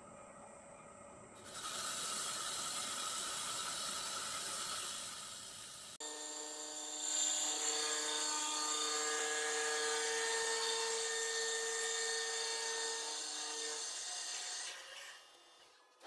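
Vertical CNC wheel repair lathe turning the face of a spinning aluminium alloy wheel. A steady cutting hiss starts about a second and a half in. An abrupt change brings a steady whine of several high tones, which dies away near the end.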